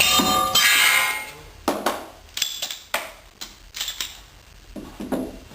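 Steel targets ringing from pistol hits: a metallic ring fading over about a second, then a series of about eight quieter, sharp metallic strikes, some with a brief ring.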